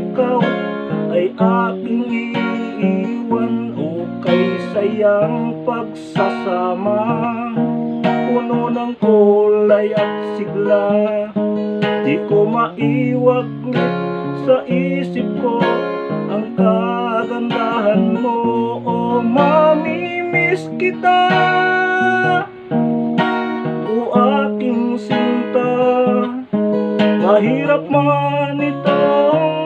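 Acoustic guitar with a capo, strummed and picked through a song, with a man singing along.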